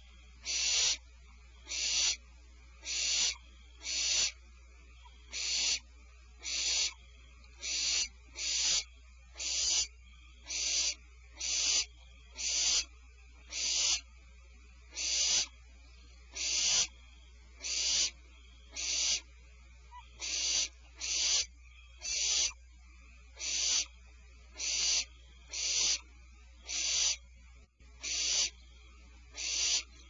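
Barn owl giving a long series of hissing, rasping 'snore' calls, about one every second, each about half a second long. This is the barn owl's food-begging call.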